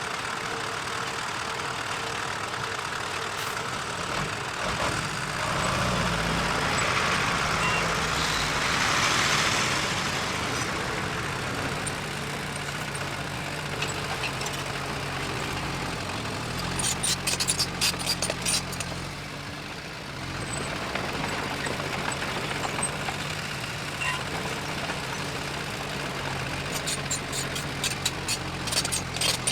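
Diesel engine of heavy earth-moving machinery running steadily, growing louder for a few seconds about six to ten seconds in. Runs of rapid metallic clattering come in around seventeen seconds and again near the end.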